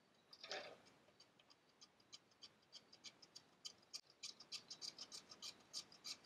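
Faint short strokes of a small block plane shaving the edge of a cedar strip. The strokes come several a second and get quicker and louder toward the end.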